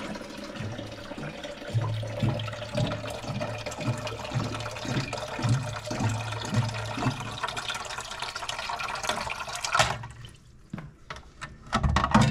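Water running into an espresso machine's removable water tank as it is filled, a steady rush that stops abruptly about ten seconds in. A few light clicks and knocks follow as the tank is handled.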